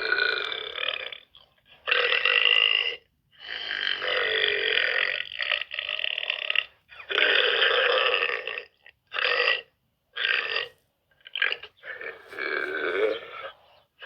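A girl burping over and over: a string of about nine burps, most of them long and drawn out, with a few short ones past the middle.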